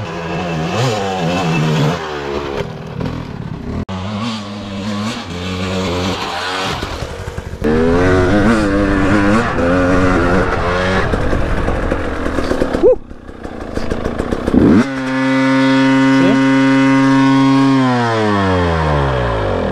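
KTM two-stroke dirt bike engine revving up and down, then hanging at a steady high rev for about three seconds instead of dropping back to idle, before winding down and stopping near the end. The revs hanging up is a fault the rider suspects is an air leak.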